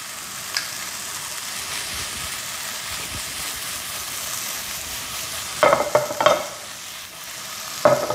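Kwetiau rice noodles and greens stir-frying in a nonstick frying pan as it is tossed, with a steady sizzle. A few sharp metal clanks with a short ring come about two-thirds of the way through and again near the end.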